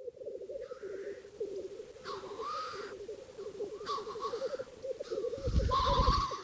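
Wild animal calls: a continuous low, fast-pulsing trill, with four louder, harsher calls over it. A low rumble comes with the last call near the end.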